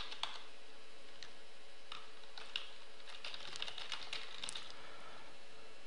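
Typing on a computer keyboard: a few separate keystrokes, then a quick run of keys from about three seconds in, as a product key is entered.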